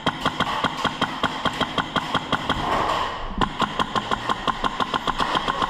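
Airsoft rifle firing in a long, even stream of shots, about seven or eight a second.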